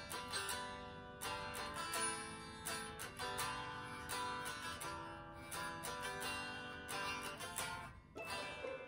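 Acoustic guitar music: a steady run of plucked notes, each ringing on.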